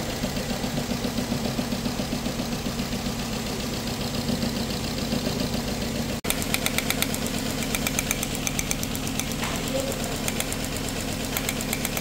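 Four-cylinder engine of a 2007 Nissan Tiida (Versa) hatchback idling with a regular pulsing beat, with one cylinder (number four) not firing: a multiple-cylinder misfire logged as P0300. After a brief dropout about halfway through, a rapid sharp ticking joins the engine sound.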